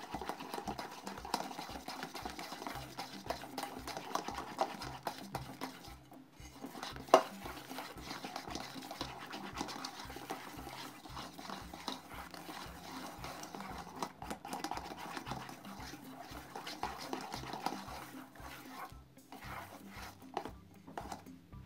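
Small whisk beating a thick, foamy slime mixture of toothpaste and shower gel in an enamel bowl, with one sharp knock against the bowl about seven seconds in. Background music with a steady beat of about two pulses a second plays under it.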